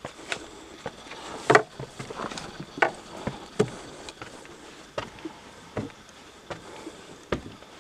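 Footsteps climbing wooden stair treads: a series of knocks roughly every three-quarters of a second, uneven in strength, the loudest about a second and a half in.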